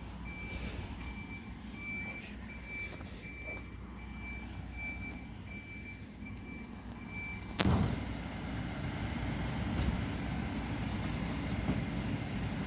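Mercedes Econic bin lorry's reversing alarm beeping steadily, a little under two beeps a second, over its diesel engine running. About seven and a half seconds in the beeping stops with a sudden loud blast, and the engine runs on louder.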